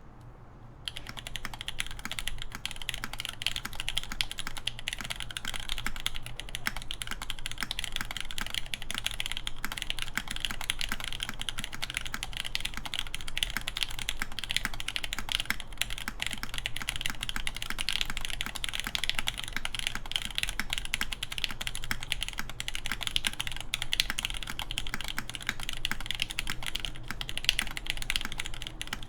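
Steady, fast typing on a mechanical keyboard with lubed Nixdorf Cherry MX Black linear switches, an aluminium plate and Cherry keycaps: a dense run of keystroke clacks that begins about a second in.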